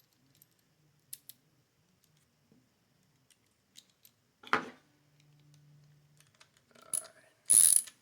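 A single knock about halfway through, then near the end the Klein stubby ratcheting nutdriver's ratchet starts clicking: a loud burst of rapid pawl clicks as the handle is swung back while driving a nut.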